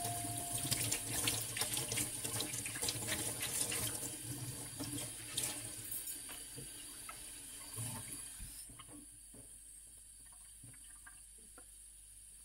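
Kitchen tap running and splashing into a stainless-steel sink while a cloth is rinsed and squeezed under the stream. The sound grows gradually quieter and stops about eight and a half seconds in, leaving a few faint clicks.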